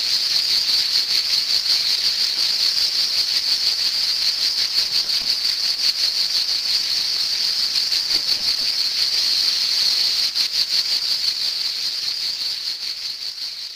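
Cicada singing: a continuous high-pitched rasping buzz made of rapid pulses, fading out near the end.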